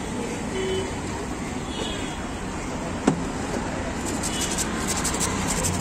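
Busy street ambience: a steady wash of road traffic, with one sharp knock about three seconds in.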